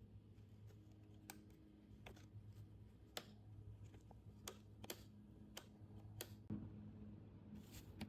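Faint, irregular light clicks of small chainsaw parts being handled as the Stihl 021's carburetor throttle linkage is worked into place, over a low steady hum.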